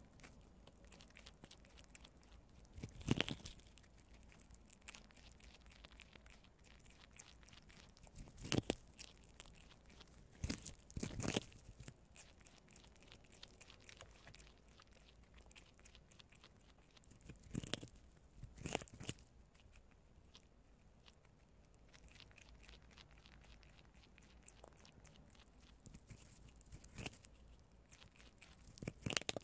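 Two prairie dogs gnawing kernels off a cob of white corn: a faint, steady patter of small crunching bites, with louder crunches every few seconds.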